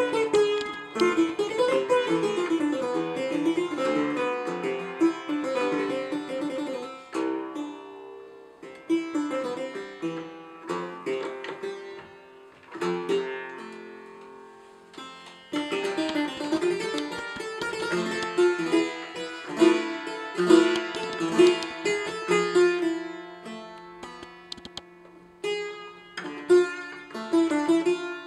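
Italian-style renaissance clavichord being played solo in an improvisation: quick runs of notes with the strings' soft twang, in phrases that fade away and start up again several times.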